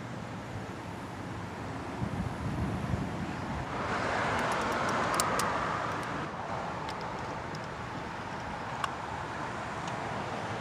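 Background traffic noise, with a vehicle passing that swells and fades about four to six seconds in; a few faint clicks come through in the middle.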